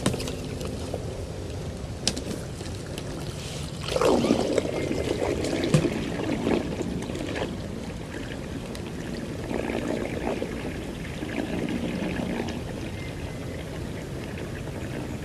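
Water trickling and lapping close by, with a louder churn of water about four seconds in and a few small ticks.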